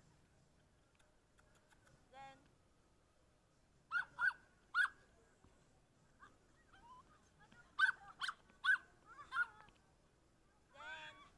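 A dog giving short, high-pitched yelps and whines in quick clusters: three together about four seconds in, four more around eight to nine seconds, and another run near the end.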